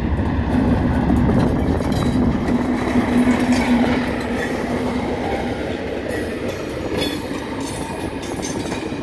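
Class 37 diesel locomotive with its English Electric V12 engine pulling away with a test train, a steady engine note that fades after about five seconds as it passes. It is followed by the coaches' wheels clicking over rail joints.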